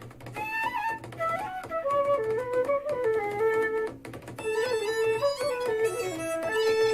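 Instrumental music with a flute-like melody, played back through a portable Bluetooth speaker and picked up in a small room. The melody breaks briefly about four seconds in before continuing.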